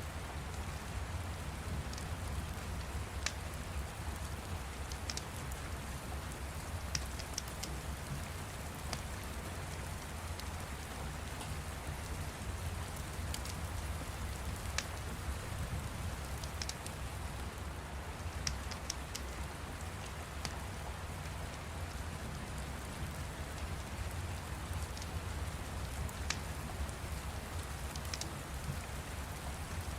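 Steady rain with a low rumble underneath, and a fire's sharp crackling pops scattered irregularly on top, sometimes several in quick succession.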